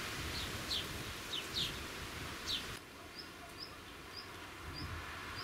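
Small birds calling: quick, high, falling chirps in the first half. After a sudden drop in the background hiss, a short high note repeats about twice a second.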